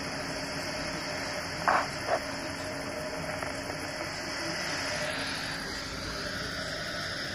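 Steady radio hiss from a handheld amateur transceiver tuned to the ISS downlink on 145.800 MHz, in a gap between the crew's voice transmissions, with two short blips just under two seconds in.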